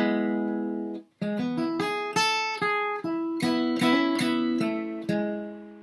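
Capoed acoustic guitar being flatpicked: a chord rings for about a second and is cut off short, then a quick bluegrass lick of single picked notes follows.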